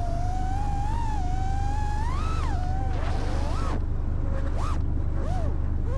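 AOS 5 V2 FPV quadcopter's motors and propellers whining, the pitch following the throttle: fairly steady at first, a rise and fall about two seconds in, then several short quick blips near the end, over a steady low rumble.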